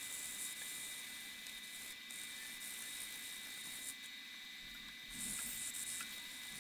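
Wet-and-dry abrasive paper scraping over a rusty steel saw plate wet with mineral spirits, a faint hissing rasp that comes and goes. About five seconds in, the paper crinkles as it is handled and folded.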